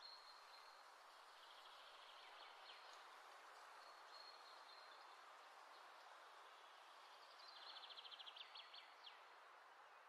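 Faint steady sizzling of potato kebabs shallow-frying in oil in a pan. Faint high chirps sound over it, with a quick high trill about three-quarters of the way through.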